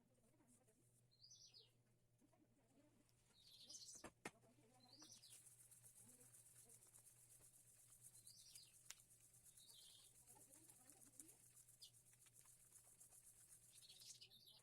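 Faint bird chirps: short high calls repeated every second or two, over a steady high hiss, with one sharp click about four seconds in.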